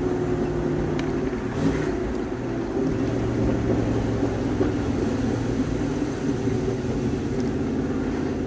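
Turbocharged Camaro IROC-Z engine running as the car drives, heard from inside the cabin as a steady low drone.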